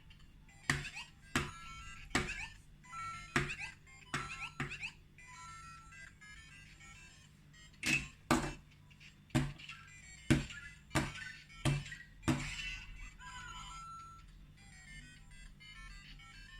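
LEGO Super Mario interactive figure playing electronic Mario sound effects and snatches of game music from its built-in speaker as it is run along a brick course. A dozen or so sharp knocks sound at uneven spacing as the figure lands on the bricks.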